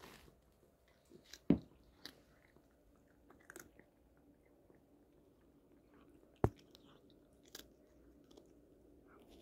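A cat crunching dry Temptations cat treats, small crunches and clicks scattered through, quiet overall. Two sharp, louder clicks come about a second and a half in and again about six and a half seconds in.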